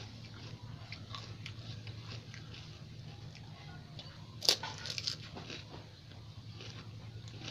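Mouth eating pani puri: soft chewing and small crunches of the crisp puri shells, with one loud sharp crunch about four and a half seconds in and a few smaller ones just after.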